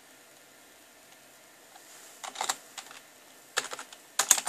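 Keystrokes on a PS/2 computer keyboard: after about two seconds of quiet, several quick clusters of key clicks as a short command is typed.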